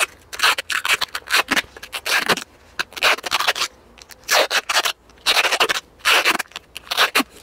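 Adhesive tape pulled off its roll in many quick, irregular rasping strips as it is wound around the joint of a steel pipe and a hair dryer.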